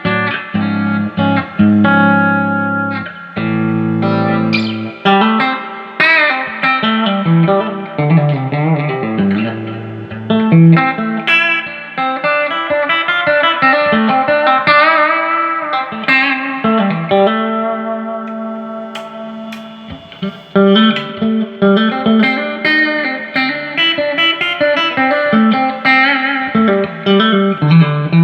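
Electric guitar played through a Fender Hot Rod Deluxe tube amp, working again after a repair with a new 6L6GC power-tube pair and fresh filter caps. The playing mixes chords with single-note lead lines that have string bends and vibrato.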